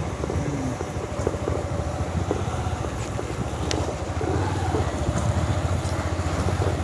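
Motorcycle engine running steadily while riding along a road, a low, rapid pulsing throughout.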